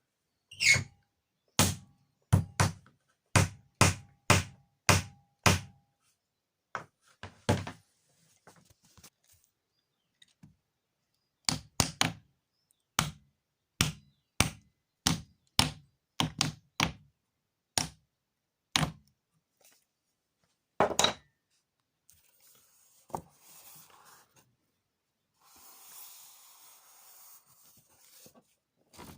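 Hammer blows in quick runs of about two strikes a second, with pauses between the runs, then faint rustling and scraping near the end.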